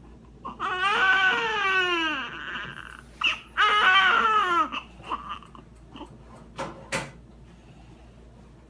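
Newborn baby crying: two long wails that fall in pitch, then trailing off into short whimpers.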